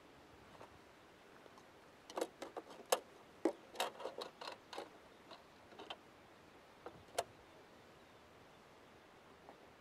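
A quick run of small clicks and knocks from fishing gear being handled, between about two and five seconds in, then one more sharp click about seven seconds in.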